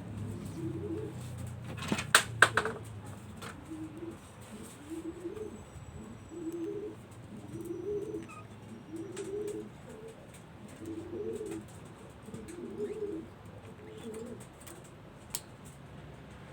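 Pigeons cooing, a string of low, throaty coos repeating every second or so. A few sharp knocks sound about two seconds in, and one more click near the end.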